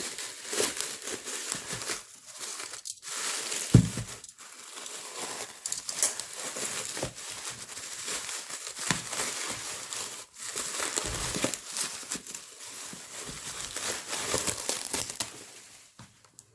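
Packaging crinkling and rustling as it is handled and unwrapped, with a thump about four seconds in. It dies away near the end.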